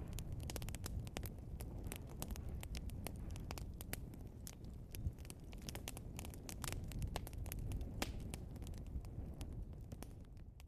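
Logs burning in a fireplace, crackling and popping: many irregular sharp cracks over a steady low rumble of the fire, with one louder pop about halfway through.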